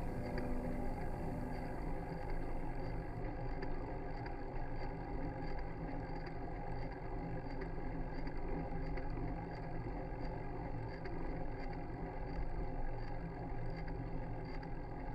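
Stricker Lupo handbike rolling along a paved path: a steady rumble of tyres and drivetrain, with faint ticks at an even pace.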